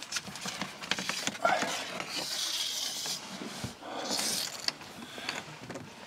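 Hands working a grommet onto a coaxial cable and into a hole in wood wall paneling: scattered light clicks with stretches of rubbing and rustling.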